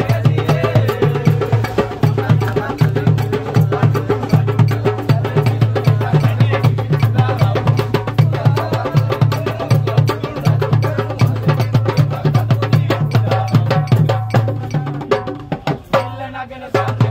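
Fast hand drumming on a rope-laced barrel drum and a plastic basin, with voices singing along. The beat is dense and even, then thins out briefly near the end.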